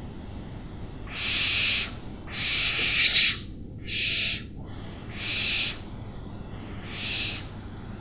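An owl giving five harsh, hissing screeches, each about half a second to a second long, with the last one fainter, over a steady low rumble.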